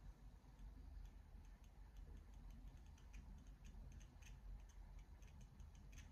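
Near silence: faint room tone with scattered, irregular light ticks.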